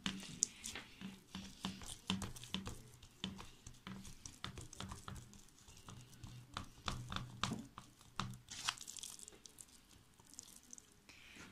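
Hands pressing and patting soft poğaça dough out flat in a metal pan: a run of soft, sticky pats and slaps, over a faint steady low hum.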